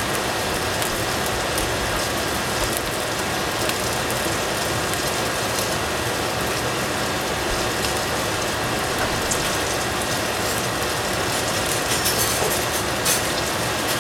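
Ground meat sizzling steadily as it fries in a stainless steel pot over a gas flame, with a few louder crackles near the end.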